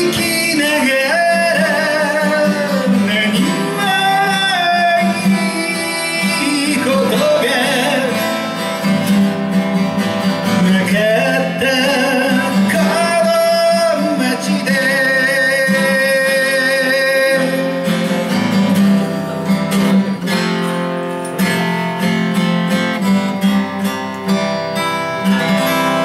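Acoustic guitar strummed as accompaniment to a singer's voice in a Japanese folk song, the melody line bending and wavering over the steady strumming.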